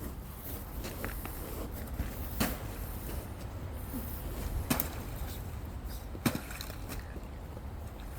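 Three sharp crunching footsteps on wet, icy ground, about two seconds apart, over a steady low rumble.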